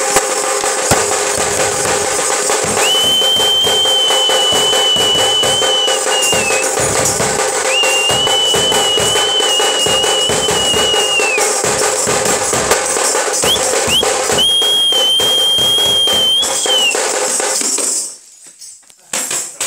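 Large nagara kettle drum beaten fast with two sticks, with tambourine jingles over it. A high held whistle-like tone sounds three times over the drumming, and the playing cuts off near the end.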